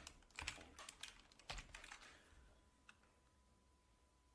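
Computer keyboard keystrokes: a handful of quick key taps in the first two seconds, then near silence with one more faint click near three seconds.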